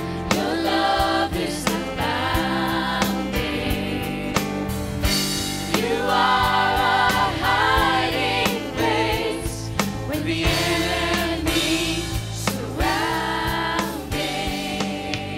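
Live church worship band playing a song: several voices singing held notes over keyboard and drums, with a steady beat.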